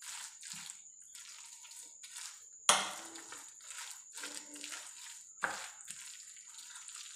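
Metal spoon stirring a wet grated-potato batter in a glass bowl: a squelchy scraping repeated about twice a second. The spoon clinks sharply against the glass about two and a half seconds in, and more lightly near five and a half seconds.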